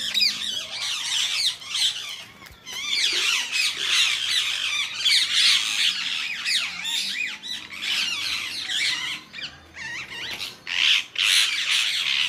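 Many birds chirping and squawking at once: a dense chatter of short, rapidly rising and falling high calls, with a few brief dips.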